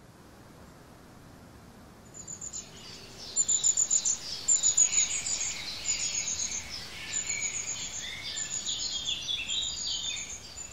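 Small birds chirping and twittering in quick, high repeated notes, starting about two seconds in over a faint steady hiss.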